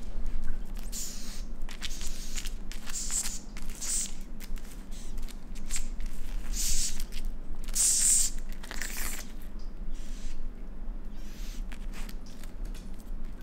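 Pet raccoon eating bugs on a stone countertop: a run of short, high, noisy bursts of chewing and handling about one a second, thinning out near the end.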